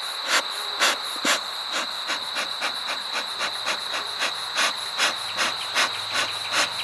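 Insects chirping, cricket-like: a steady high tone with short, evenly spaced pulses about four a second.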